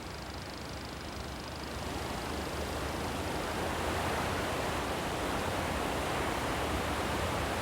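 Steady rushing of water, a noisy wash that grows louder about two seconds in and then holds.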